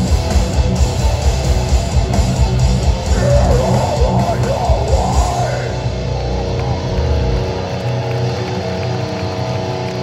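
Live metalcore band playing loud, with pounding drums and heavy distorted guitars; about six to seven seconds in the drums stop and a held guitar chord is left ringing.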